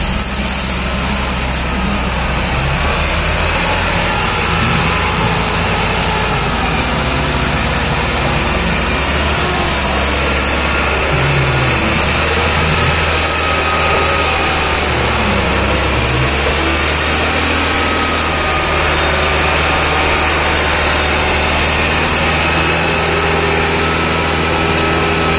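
Massey Ferguson tractor's diesel engine running hard under a heavy load, pulling an overloaded sugarcane trolley, with the revs wavering a little midway. The strain is enough to lift the tractor's front wheels off the ground.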